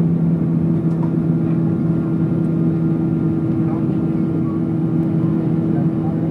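Airliner cabin noise during the climb after takeoff: the jet engines run steadily under an even rush of airflow, with a constant low two-note hum.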